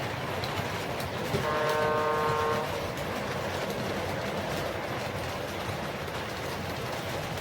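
O gauge model train running on the layout, a steady rolling rumble, with one horn blast of about a second and a half, a chord of several notes, starting just over a second in.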